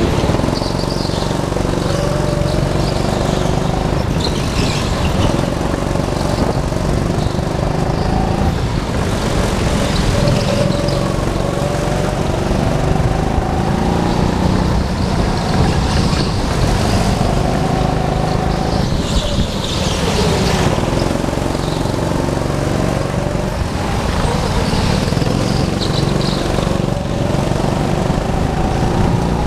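Go-kart engines running at speed around an indoor track, their pitch rising and falling as the karts accelerate out of corners and ease off into them, with a steady low rumble underneath.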